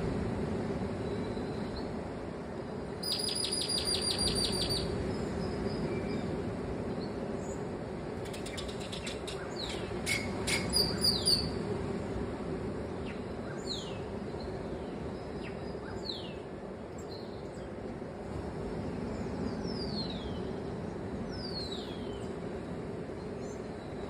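Birds calling: a fast trill about three seconds in, a run of sharp chips around ten seconds, then several short descending whistles, over a steady low rumble.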